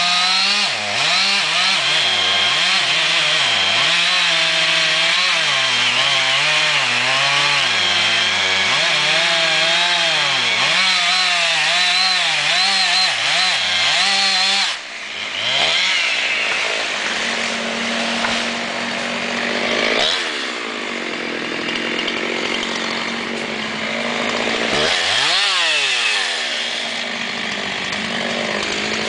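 Two-stroke chainsaw cutting into the base of a big poplar trunk, its engine pitch wavering up and down as the chain bites under load. About halfway through the throttle drops briefly, then the saw runs on at a steadier, higher speed under lighter load, with a quick dip and rise in revs near the end.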